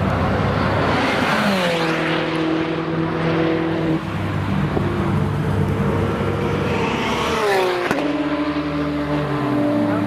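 Race cars passing at full speed, twice: once about a second in and again at about seven to eight seconds. Each time the engine note drops sharply in pitch as the car goes by, then holds a steady drone as it pulls away down the straight.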